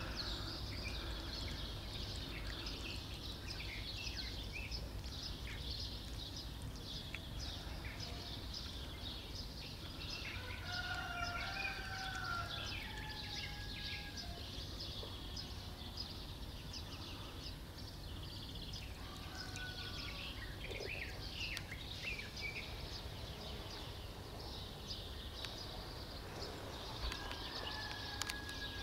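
Outdoor ambience: small birds chirping and twittering over a steady low background rumble, with a few clear whistled notes partway through.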